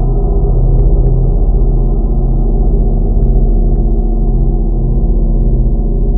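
A 60-inch gong played loudly and continuously: a dense, sustained wash of many overlapping low tones that wavers in a slow pulse, with no separate strikes standing out.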